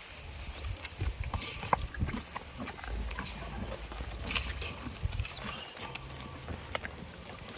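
Goats moving about, their hooves clattering in scattered sharp clicks and knocks over a low rumble.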